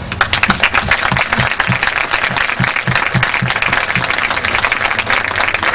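Crowd applauding, dense clapping.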